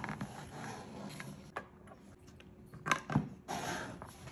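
Light handling noises: a few sharp knocks and soft paper rustles as a toddler fiddles with a paper fry bag on a tabletop, the loudest knock a little before three seconds in.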